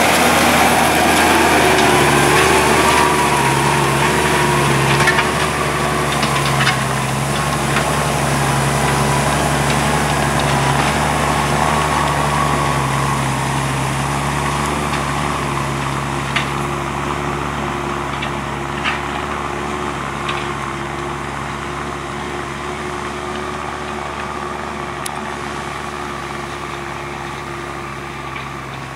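Deutz-Fahr tractor's diesel engine and exhaust running steadily under load as it pulls a stubble cultivator through the field, with a few brief clicks. The sound slowly fades as the tractor moves away.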